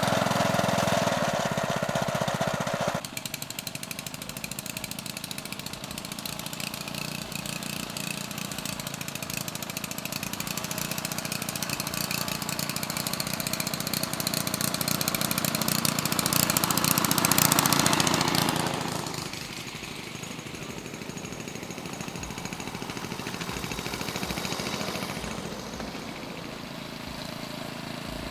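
Small engine of a 7¼-inch gauge Scamp ride-on locomotive running as it travels along the track, growing louder toward about 17 seconds in, then dropping away suddenly.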